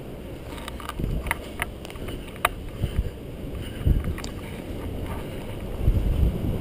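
Wind buffeting the microphone with low rumbling gusts, and a few sharp clicks between about one and two and a half seconds in.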